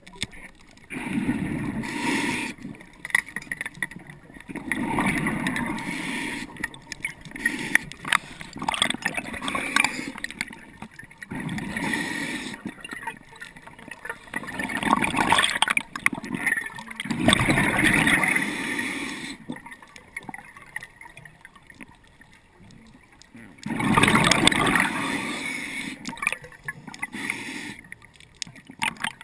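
Diver breathing underwater through a regulator: bubbly exhales gurgling and regulator hiss, repeating every few seconds, with a longer pause about two thirds of the way through.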